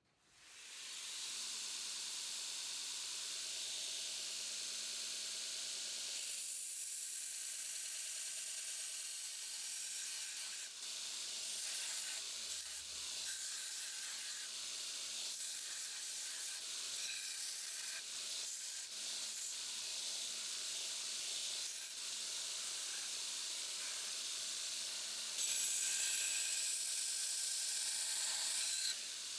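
A 2x72 belt grinder grinding a Damascus steel knife blade: a steady hiss of steel against the running abrasive belt, louder for the last few seconds.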